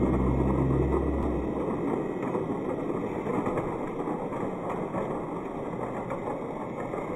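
Märklin my world battery-powered plastic toy train running on its plastic track: a steady whir of the small motor and wheels, with a deeper hum for the first second and a half as the cars pass close by.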